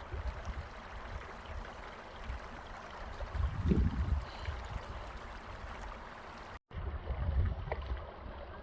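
Wind buffeting the microphone outdoors: an uneven low rumble with a stronger gust about four seconds in. A brief dropout near the end marks a cut in the recording.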